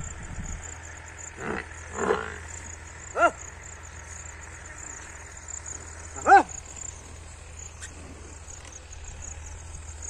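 A few short, sharp vocal calls, each well under a second, the loudest about six seconds in, over a steady low rumble.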